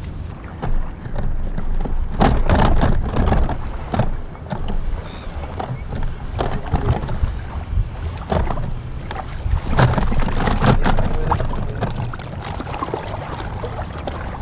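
Wind buffeting the boat-mounted microphone, with irregular knocks and rattles from the inflatable boat being moved about.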